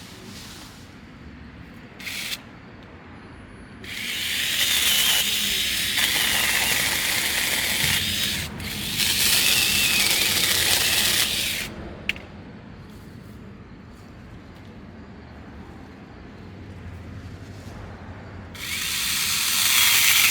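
Sainlogic 6-inch battery-powered mini chainsaw running in three bursts as it cuts small branches and sprouts: about four seconds in for about four seconds, again for about three seconds, and again near the end. The motor's high whine wavers as the chain bites into the wood.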